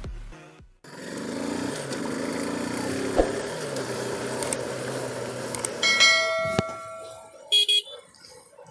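Bajaj Pulsar NS200's single-cylinder engine running under way, with wind noise, after intro music fades out at the start. About six seconds in, a click and a bell-like ding from a subscribe-button sound effect cut through, followed by a short chirp.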